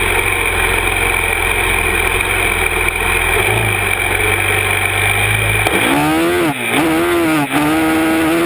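Yamaha YFZ 450R's single-cylinder four-stroke engine running steadily along a sandy trail. About six seconds in, it revs hard to a high pitch as it climbs a sand slope, dipping twice briefly before holding at high revs.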